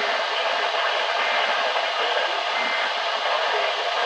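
Steady radio static hiss from a NOAA weather radio receiver, with no clear broadcast coming through: the weather station has dropped off the air.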